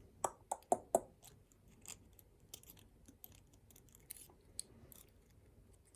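Small clicks and taps from the parts of a disassembled pin-tumbler lock being handled: four sharp clicks in the first second, then scattered faint ticks.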